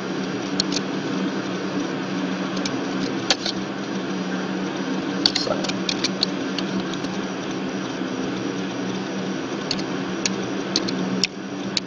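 Scattered computer keyboard and mouse clicks as text is typed and edited, a dozen or so at uneven intervals, over a steady low hum.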